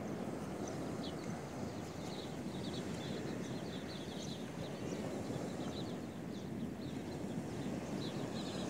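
Steady wash of sea surf on the beach, with quick clusters of short, high chirps from small birds over it.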